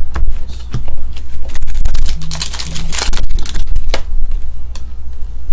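Trading cards and pack wrappers being handled and flicked through: scattered clicks and a burst of rustling about halfway through. Under them runs a steady low rumble of wind on the microphone from a draft in the room.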